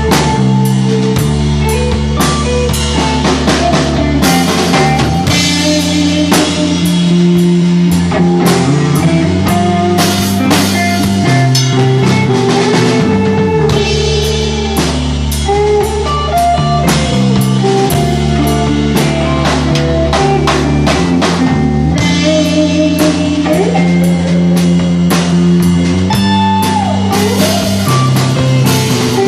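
Stoner rock band playing live: an instrumental passage of guitar lines over held bass notes and a steady drum kit beat with frequent cymbal hits.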